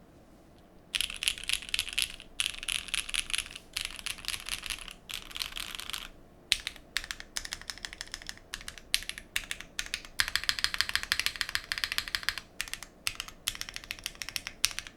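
Typing on a Geonworks Frog Mini mechanical keyboard with lubed SP-Star Meteor White V2 linear switches in a polycarbonate plate, under GMK keycaps: quick runs of keystrokes starting about a second in, broken by short pauses.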